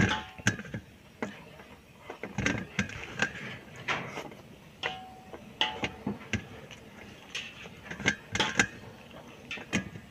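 A person eating: chewing and lip-smacking with irregular sharp clicks.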